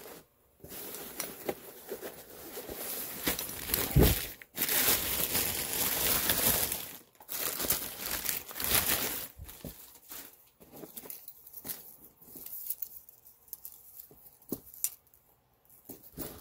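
Stiff cotton canvas of a military rucksack with leather straps rustling and crumpling as it is handled and turned over, with a sharp knock about four seconds in. After about ten seconds it dies down to quieter rustles and small clicks.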